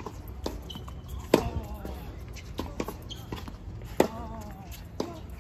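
Tennis rally on a hard court: two loud pops of a racquet's strings striking the ball, about two and a half seconds apart. Fainter thuds of the ball bouncing and of strokes further off fall in between.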